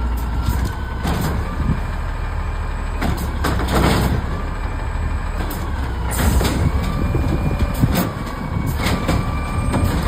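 Automated side-loader garbage truck running its diesel engine while its hydraulic arm lifts a wheeled trash cart, tips it into the hopper and lowers it, with a faint steady whine and repeated sharp knocks and clatters of the cart and arm. The uploader says this truck's arm still stutters going up.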